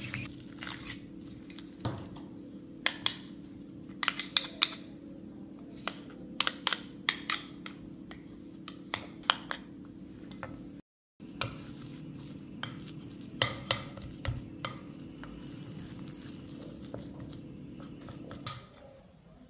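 Metal potato masher pressing boiled potatoes in a glass bowl, with irregular clinks and knocks of metal against glass. A steady low hum runs beneath and stops near the end, with a brief silent gap halfway through.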